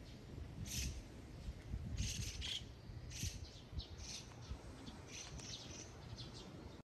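Small birds chirping in short high calls, scattered about once a second, over a low rumble.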